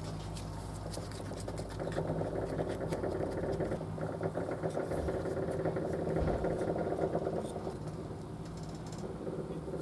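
A workshop machine's electric motor running steadily, with a louder, rougher noise over it from about two seconds in until about seven and a half seconds in.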